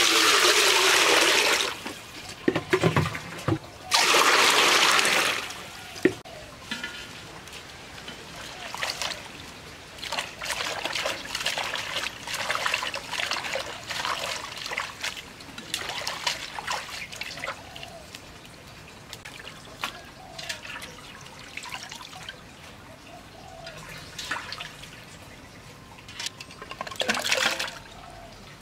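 Water poured into an aluminium pot of leafy greens, two loud pours in the first few seconds. Then hands swish and rinse the greens in the water with lighter splashes, and another short pour comes near the end.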